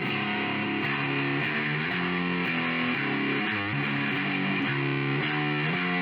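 Outro music: distorted electric guitar music with a steady beat.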